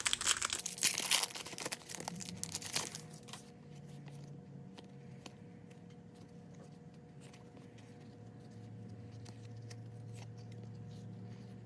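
Trading card pack wrapper crinkling and tearing for about three seconds, then faint scattered clicks and rustles of cards being handled.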